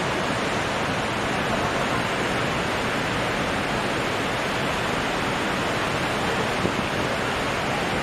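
Steady rushing of turbulent floodwater churning below a dam, an even, unbroken noise.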